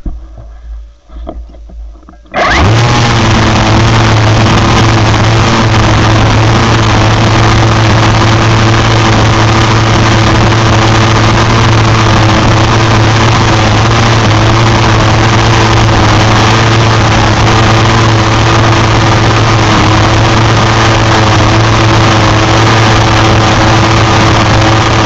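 Kobalt 24V battery string trimmer switching on about two seconds in and running at a steady full speed, its electric motor and spinning line giving a loud, even hum as the line cuts through grass and weeds.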